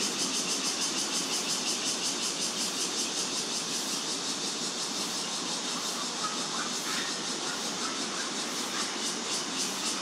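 Steady outdoor ambience: a high, fast-pulsing insect drone over a low, even wash of distant traffic.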